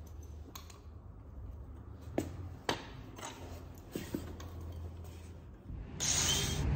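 Scattered knocks and sharp taps as an angle grinder and tools are handled against the car's wheel well, over a low steady hum. About six seconds in, a loud harsh hissing noise starts suddenly.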